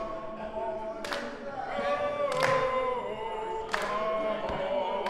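A group of men singing together a cappella, keeping time with a single sharp hand clap about every second and a half.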